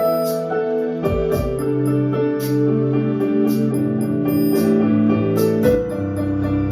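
Keyboard playing sustained chords over a backing track with light, regular percussion ticks; the chord and bass change about a second in and again near the end.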